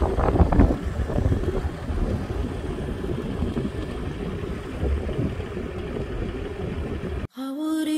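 Land Cruiser off-road SUV engine running as the vehicle rolls slowly on a dirt track, a steady low rumble mixed with wind on the microphone. Near the end it cuts off abruptly, and soft music begins.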